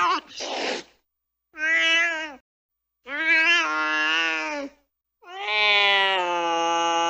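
Angry cat giving a short hiss, then three drawn-out yowling meows with silent gaps between them, each longer than the last; the last is a long, steady yowl.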